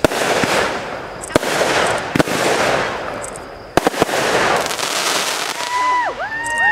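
Fireworks going off: a sharp bang about every second or two, each followed by a long spray of dense crackling. Near the end, several high tones rise, hold and fall.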